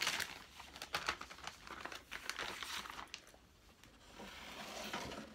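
Clear plastic zipper-lock bag crinkling and rustling as it is handled and opened, in irregular crackles with a softer rustle near the end.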